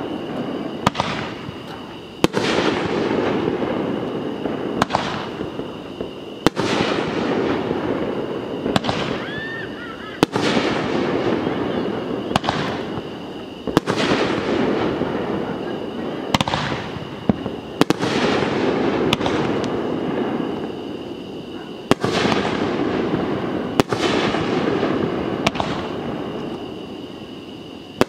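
Aerial fireworks bursting in a steady sequence, a sharp bang about every two seconds, each followed by a long rumbling echo that dies away before the next.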